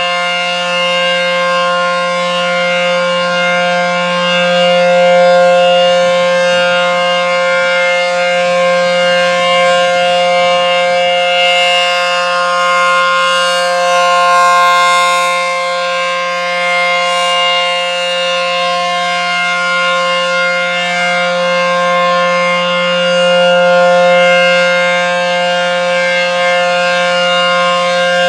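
ACA outdoor tornado warning siren sounding the steady Alert signal: a chord of several steady pitches held without rising or falling. It swells louder and fades back about every nine to ten seconds.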